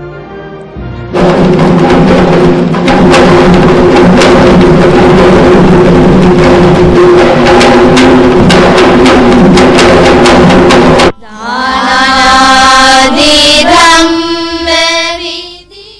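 Ceremonial music: loud, fast drumming over held low tones that stops abruptly about eleven seconds in, followed by a few seconds of a melody with sliding pitch that fades out.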